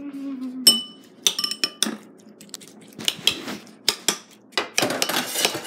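Metal spoon clinking and scraping against a small glass bowl: a few ringing clinks in the first two seconds, then a run of quicker taps and scrapes from about halfway through.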